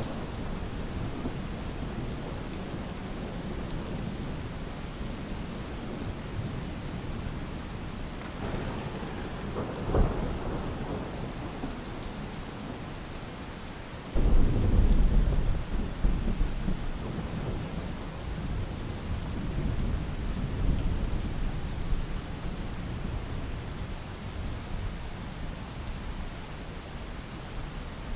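Steady rain falling, with thunder: a short crack about ten seconds in, then a sudden loud low rumble about halfway through that slowly fades.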